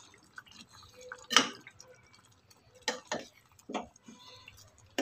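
Metal spoon stirring a wet masala in a pressure cooker: wet stirring sounds with about four sharp knocks of the spoon against the pot, the loudest about a second and a half in.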